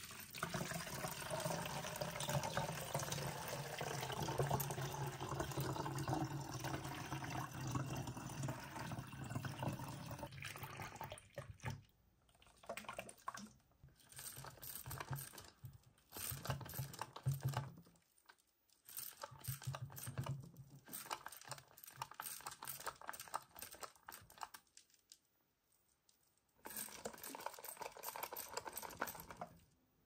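Water poured into a clear plastic water ring-toss toy, a steady splashing pour for about ten seconds. After that come a series of short bursts of water sloshing and swishing inside the toy, broken by brief pauses.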